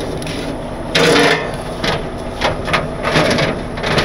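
A series of knocks and scrapes from hard objects being handled and set in place on the truck, loudest about a second in and again near three seconds, over a steady low hum.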